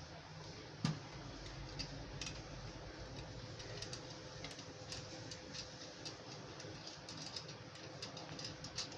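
Scattered light clicks and taps of parts being handled, with one sharper knock about a second in, over a faint steady hum.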